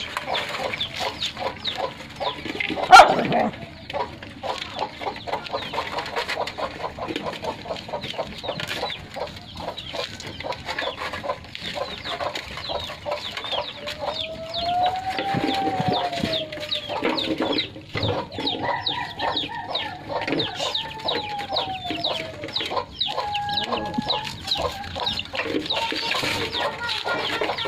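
Chickens clucking while puppies chew and lap rice from a basin in quick, dense clicks, with one sharp knock about 3 s in. Twice in the second half a rooster's long crow rises and falls.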